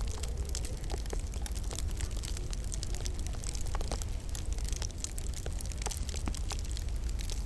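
Wood fire crackling in a log burner: many irregular sharp pops and snaps over a steady low rumble.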